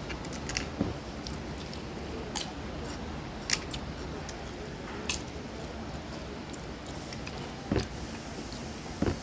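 Scattered light clicks and clinks of eating from a plate, a handful of sharp ticks a second or more apart, over a steady background hum.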